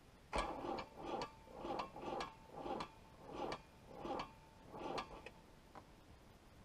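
Starter motor slowly cranking a cold Perkins 4.236 four-cylinder diesel, about eight labouring turns a little over half a second apart, with a faint steady whine, stopping about five seconds in without the engine catching: the battery is too weak for the cold start.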